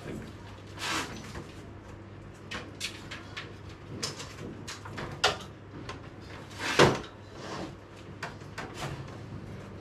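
LG split AC indoor unit being pushed and seated onto its wall mounting plate: a series of plastic-and-metal knocks and scrapes, the loudest about seven seconds in.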